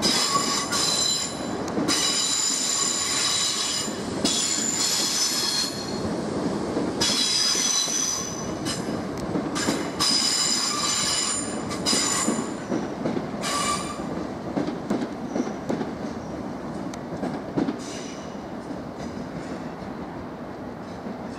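Class 455 electric multiple unit's wheels squealing high on the rails in several bouts, over the low rumble of the train running. The squeal dies away after about two-thirds of the way through, and the rumble fades.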